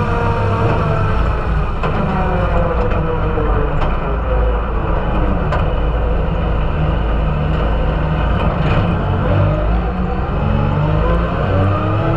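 Side-by-side UTV engine heard from inside the cab, its note falling as the machine slows over the first few seconds, holding lower through the middle, then rising again near the end as it picks up speed.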